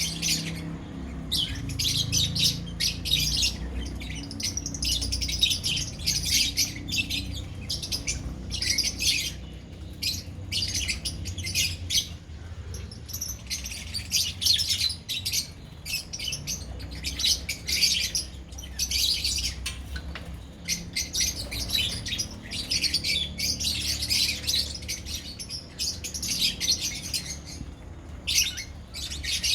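A colony of small pet parrots kept as love birds, many chattering, chirping and squawking at once in a dense, unbroken chorus of high calls over a steady low rumble.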